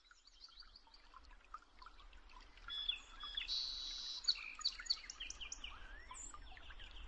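Garden birds chirping and calling: many short chirps from more than one bird, faint at first and busier from about three seconds in, with a few brief held notes among them, over a faint low rumble.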